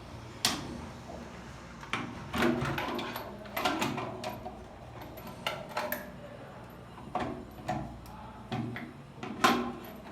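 Irregular knocks, clicks and clatters of hard parts being handled and tapped on a concealed toilet cistern's flush mechanism, about a dozen in all, the loudest near the end.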